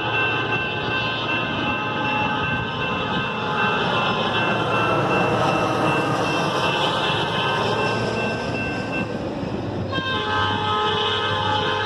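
New-cast Nathan P5 locomotive horn sounding its multi-note chord over the rumble of the passing train. The horn drops out about nine seconds in and sounds again a second later.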